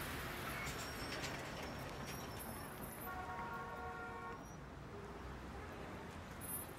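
Faint ambient background with a steady low rumble and hiss. A single held, pitched tone sounds for about a second and a half midway through.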